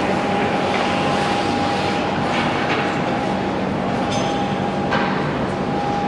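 Ice rink ambience: a steady mechanical drone with a constant hum, with a few faint clicks and scrapes of sticks, pucks and skates on the ice.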